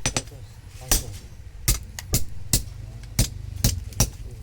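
Blacksmith's hammer striking steel, about nine sharp metallic blows at an uneven pace of roughly two a second, as holes are punched and steel is chiseled. A steady low hum runs underneath.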